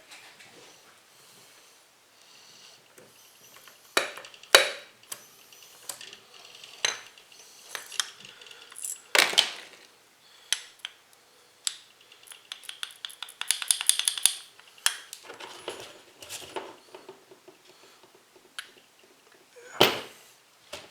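Steel outboard engine parts clinking and knocking together as they are handled on the bench: a string of sharp separate clinks, with a quick run of rattling taps about two thirds of the way in.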